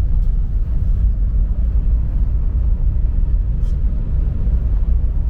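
Steady low rumble of a car on the move, heard from inside the cabin: engine and tyre noise on wet roads.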